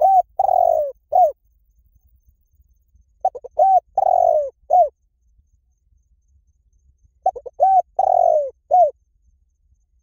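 Spotted dove cooing, three phrases a few seconds apart. Each phrase is a quick stutter of short notes, a longer falling coo, then one short closing note.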